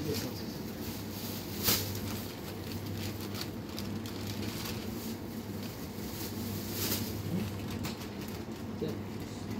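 Clear plastic carrier bag rustling as groceries are packed into it, with scattered clicks and a sharp knock about two seconds in, over a steady low hum.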